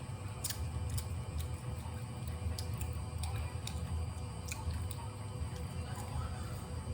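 Baby monkeys chewing crunchy snacks: scattered sharp clicks and crunches at an uneven pace, about one or two a second, over a steady low hum.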